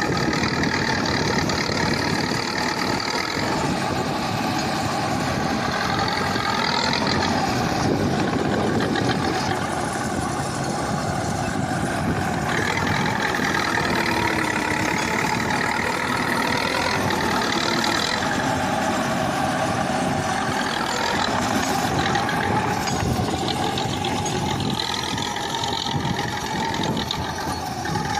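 KhTZ T-74 crawler bulldozer's diesel engine running steadily at work, its pitch rising and falling slightly as the load changes.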